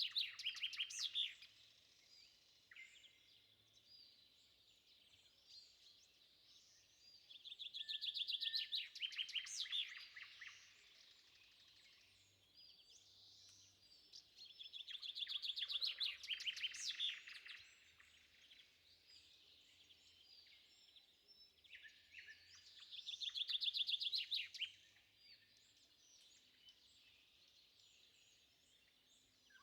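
A songbird singing a fast trilled phrase that swells over two or three seconds, repeated about every seven seconds, with faint scattered chirps between phrases.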